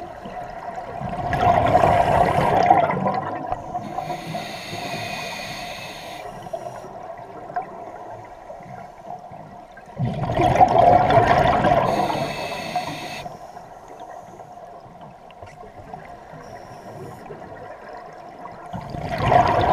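Scuba diver breathing through a regulator underwater: three rushes of exhaled bubbles about nine seconds apart. The first two are each followed by a shorter hiss as the diver breathes in.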